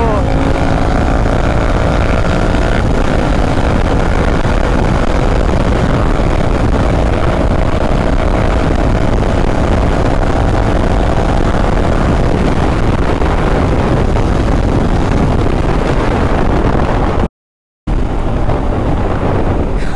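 Wind rushing over the microphone at speed, mixed with the parallel-twin engine of a Royal Enfield Continental GT 650 pulling hard in gear, its pitch climbing slowly. The sound cuts out for about half a second near the end.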